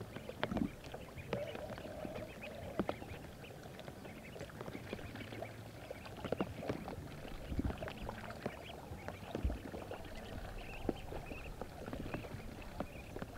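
Ducklings paddling and dabbling in water, making many small irregular splashes, with a few faint duck calls.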